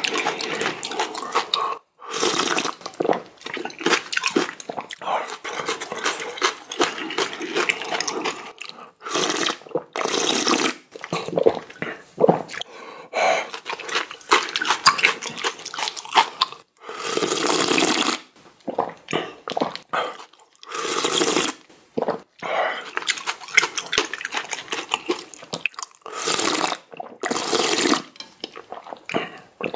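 Close-miked eating: spicy ramen noodles and broth slurped in repeated pulls, some about a second long, with wet chewing and smacking between them.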